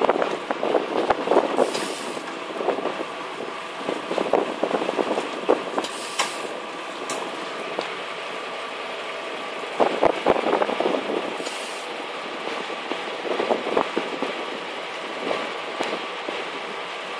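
Fishing boat's engine running steadily, with water rushing and splashing along the hull in louder surges every few seconds.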